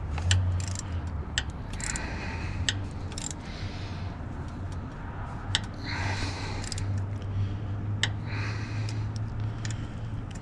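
Irregular metallic clicks and short rustles of hand tools and parts being handled while working under a car, over a steady low hum.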